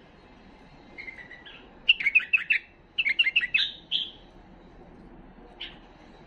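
Himalayan bulbul singing: short phrases of quick, bright chirping notes, with two fast bubbly runs of about half a dozen notes each around two and three seconds in, and a single note near the end.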